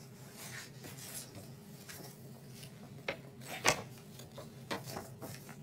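A paper booklet and a fleece blanket rustling and rubbing as the booklet is picked up and handled. A few sharp clicks sound among the rustling, the loudest a little past halfway.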